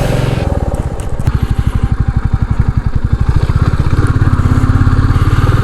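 Royal Enfield Classic 350's single-cylinder engine running on an off-road trail, its exhaust pulsing in an even beat. The beat grows louder and steadier about a second in.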